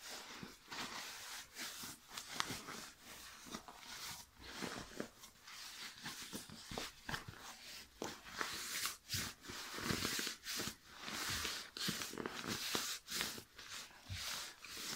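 Quick, irregular rustling and crinkling of an Aegismax ultralight down sleeping bag and its nylon stuff sack as the bag is crammed in by hand, heard played back sped up.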